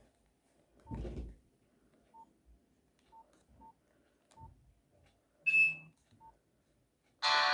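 Nokia 100 mobile phone keypad beeps: about six short, quiet single-pitch key tones spread over several seconds, with a low knock about a second in and a louder, higher tone about halfway through. A polyphonic ringtone starts playing through the phone's speaker near the end.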